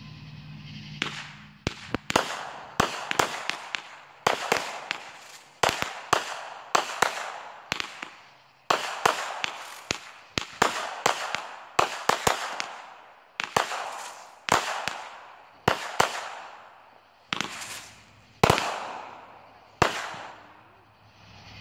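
Aerial fireworks going off in a rapid string of sharp bangs, about one or two a second, starting about a second in, each bang fading away over a fraction of a second.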